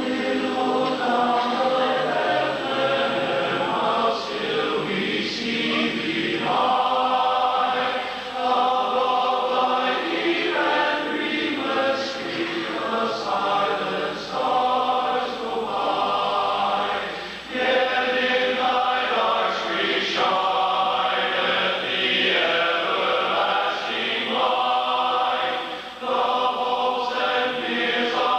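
Large men's barbershop chorus singing a Christmas song a cappella in close harmony: long held chords in phrases, with short breaks between phrases every few seconds.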